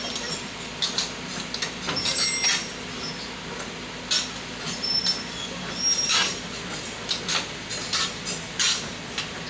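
Excavator working: a diesel engine runs steadily under a dozen or so short, high-pitched metallic squeals and clanks from its moving steel parts.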